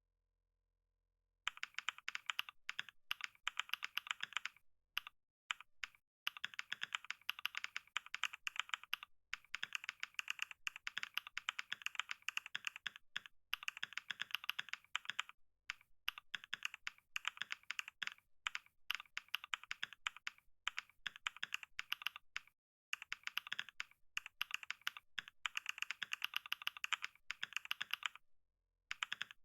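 Computer keyboard typed on steadily, a rapid run of key clicks at a typing-test pace, with brief pauses between runs. The first second and a half is silent before the typing starts.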